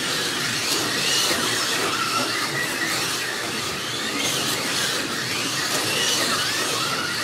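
Electric slot cars racing round the track, their small motors whining up and down in pitch again and again as they speed up and pass, over a steady hiss.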